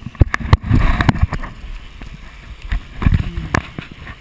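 Irregular knocks and bumps from a camera being moved about, bunched in the first second and a half and again about three seconds in, over steady wind and boat noise.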